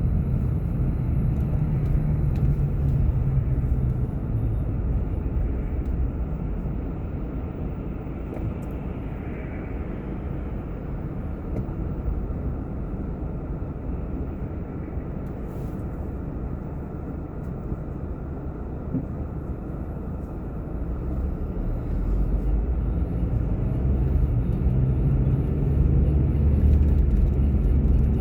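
A car driving: a steady low rumble of road and engine noise that eases off through the middle and builds again toward the end.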